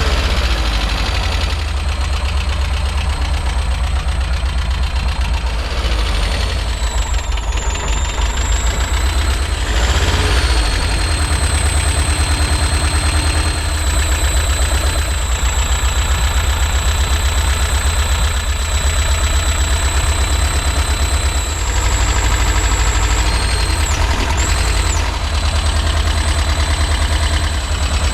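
Air-cooled flat-four engine of a 1972 VW bus idling just after starting, running a little rough and a little knocky while still hitting on all four cylinders, which is put down to the engine being cold or to the carburetor.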